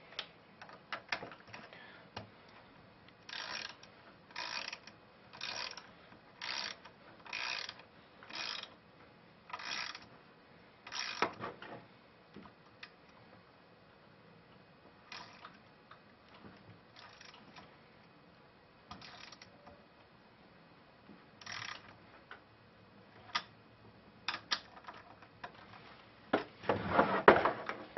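Socket ratchet clicking in a run of short strokes, about one a second, as nuts are tightened down; then scattered clicks and tool-handling noises, louder near the end.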